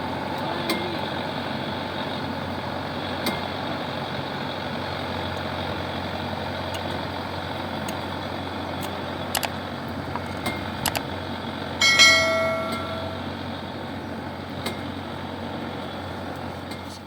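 Small combine harvester's engine running steadily, with scattered sharp clicks and knocks. About twelve seconds in there is a short, high pitched tone, the loudest moment.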